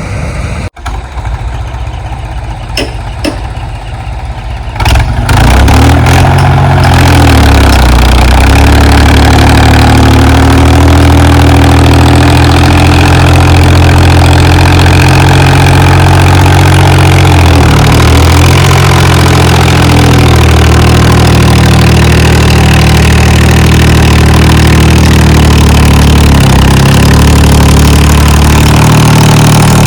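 HMT tractor's diesel engine, running low for the first few seconds, then brought up about five seconds in to a loud, steady run, with two brief dips in speed later on.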